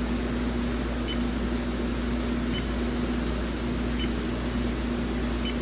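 Electronic refrigerant leak detector, set for R134a, giving four short high beeps about a second and a half apart. This is its slow rate, with no leak picked up at the probe tip. A steady low hum runs underneath.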